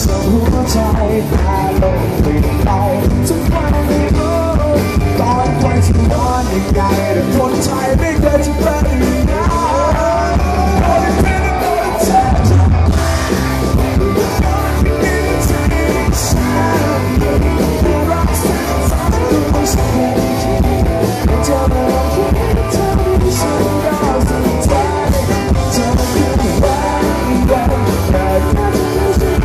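Live rock band playing through the PA: a male singer over drum kit, electric guitars, bass and keyboard.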